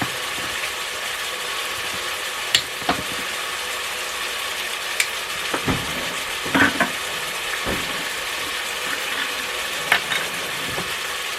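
Ground beef sizzling in a Presto electric kettle: a steady frying hiss, with a few scattered clinks and knocks.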